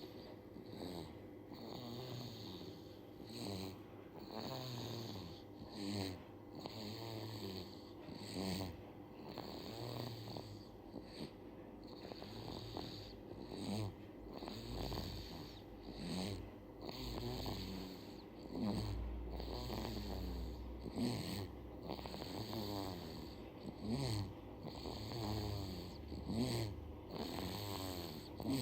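A baby snoring: noisy, rattly breaths in and out, repeating about every two seconds.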